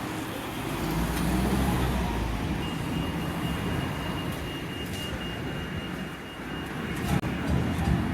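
Strong wind buffeting the microphone: a heavy, uneven low rumble with a rushing hiss.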